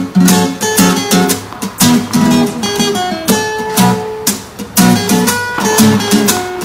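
Instrumental break in a pop song: strummed acoustic guitar over a steady beat.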